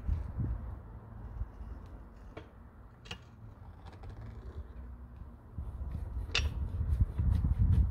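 A few sharp mechanical clicks, the loudest about six seconds in, over a low fluctuating rumble.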